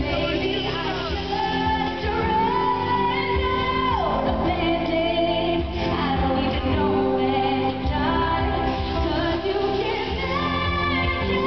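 Female pop singer singing a slow ballad live, long held notes sliding between pitches, over sustained accompaniment chords.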